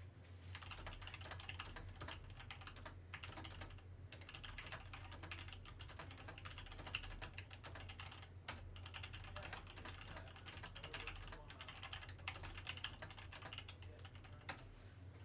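Trading cards being handled and flipped through one by one: a quick, uneven run of light clicks and flicks over a low steady hum.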